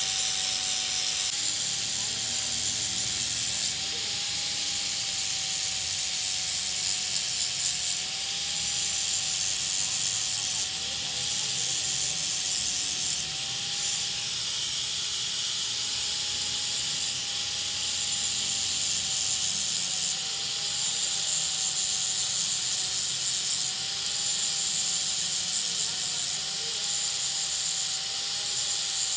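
A metalworking machine running steadily: a dense high hiss with a steady whine that wavers slightly in pitch.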